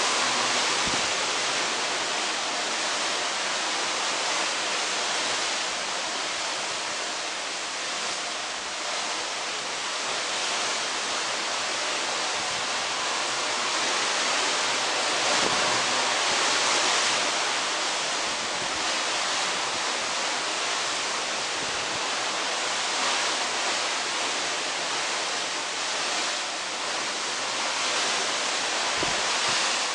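Steady rushing of sea water along the hull of a moving cruise ship, mixed with wind, swelling and easing slowly every few seconds.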